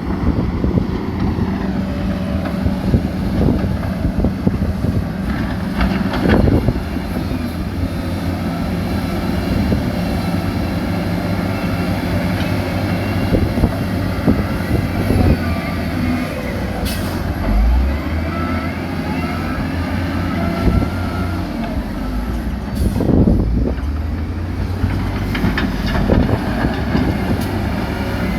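Heavy diesel earthmoving machinery running steadily under load, with scattered clanks and knocks.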